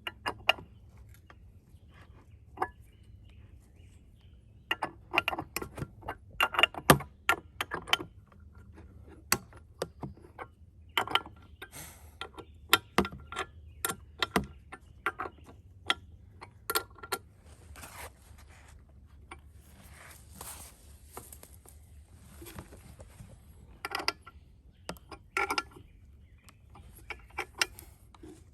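Irregular metal clicks, clinks and rattles of a chainsaw mini-mill attachment being fitted and adjusted on the saw's bar, with a few brief scraping noises in between.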